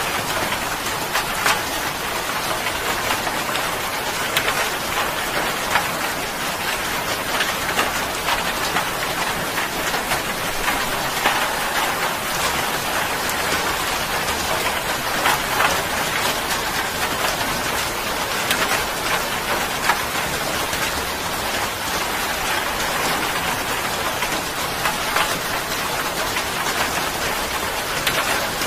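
Steady heavy rain falling and splashing on a hard surface: an even hiss with scattered louder drop hits.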